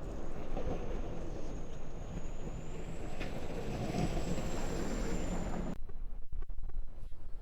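Wind buffeting the microphone on a moving e-bike, a dense rumbling rush. About six seconds in, the rush drops away suddenly, leaving scattered low thumps of wind hitting the microphone.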